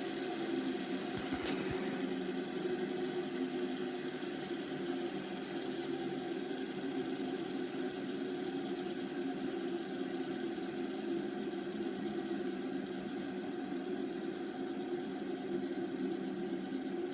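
Fidget spinners spinning on their bearings, making a steady whir, with one brief click about a second and a half in.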